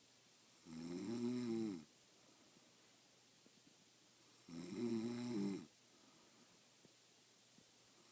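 A woman snoring in her sleep: two pitched snores, each about a second long and about four seconds apart, their pitch rising then falling.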